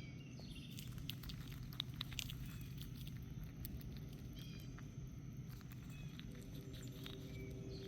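Faint scattered ticks and light patter of a chipmunk moving about and handling food at the feeding spot, over a steady low hum, with a few brief high chirps.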